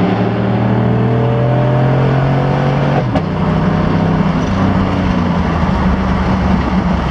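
2015 GMC Sierra pickup's engine pulling hard at high revs through a 3-inch catback exhaust with a straight-through muffler and the third catalytic converter and resonator deleted, heard from inside the cab. The pitch climbs slowly, drops sharply about three seconds in as the transmission upshifts, then keeps pulling over steady road and wind noise.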